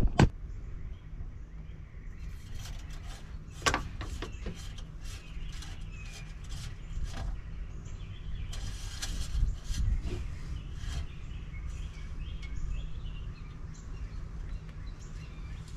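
Birds chirping over a steady low rumble, with scattered small clicks and knocks of handling, the loudest a knock about four seconds in.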